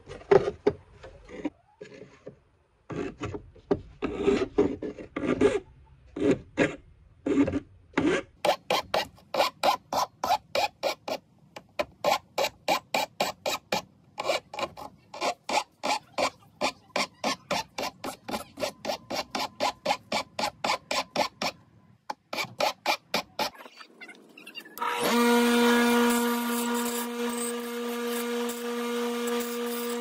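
Hand file rasping on the metal hook end of a small tool, shaping it into a pick: irregular strokes at first, then a steady run of about three strokes a second. About 25 seconds in, a bench grinder starts and runs with a steady hum.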